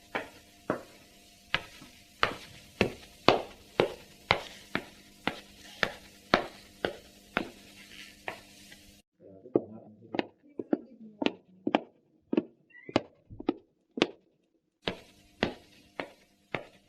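Footsteps of leather dress shoes (pantofel) walking indoors at a steady pace of about two steps a second, growing louder and then fading. About nine seconds in, the sound changes to quieter, more uneven steps, and a fresh series of steps begins near the end.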